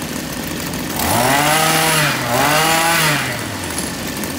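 Small petrol brush cutter engine revved twice on its throttle, each rev rising and falling back to idle, over the steady idle of the running machines.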